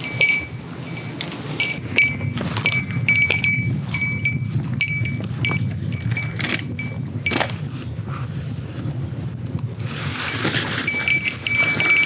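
Footsteps on a forest floor with carried camping gear jingling and clinking: small metallic bell-like rings repeat irregularly with the steps. Near the end a denser rustle and clatter comes as the gear is set down.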